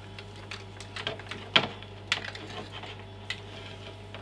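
Irregular clicks and light knocks of a coiled power lead being unwound and handled, loudest about a second and a half in.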